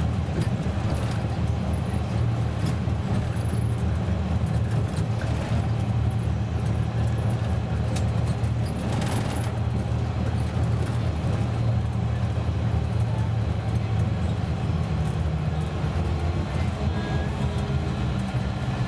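Karosa C954E intercity bus driving, heard from inside at the front: a steady low engine and road drone, with a few faint clicks and rattles.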